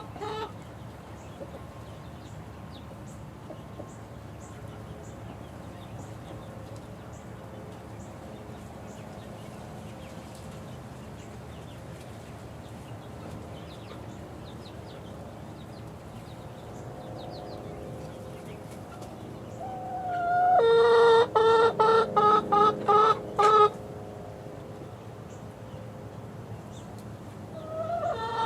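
Young chickens peeping softly in short high chirps. About twenty seconds in, a chicken gives a loud, rapidly repeated call for about three seconds, and starts calling again just before the end.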